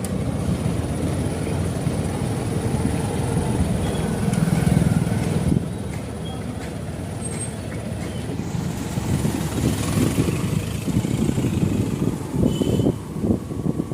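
Steady rumble of a moving vehicle on the road, with wind gusting against the microphone in the second half.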